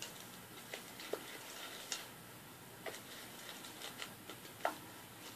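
A spoon stirring slime in a bowl as the slime is being activated, giving irregular soft clicks and taps against the bowl, a few with a short ring.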